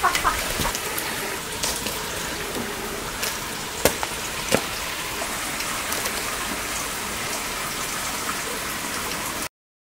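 Steady rain falling: an even hiss with a few sharper ticks of single drops, cutting off suddenly near the end.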